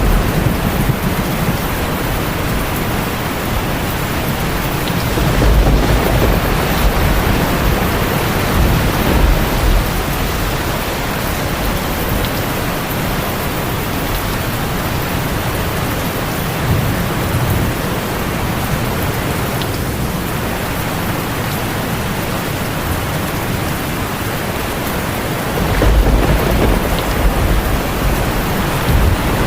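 Steady heavy rainfall with low rolling thunder, which swells twice, about a third of the way in and again near the end.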